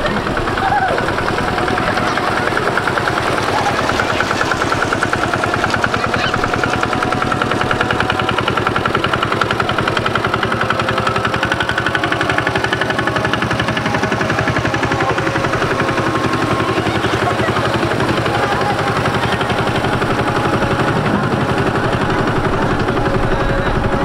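A small engine running steadily at close range, its firing a fast, even run of pulses that holds without a break.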